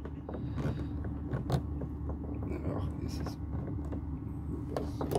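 Small plastic clicks and scrapes as a spring-loaded plastic blind latch is worked into place against a door pillar, over a steady low hum.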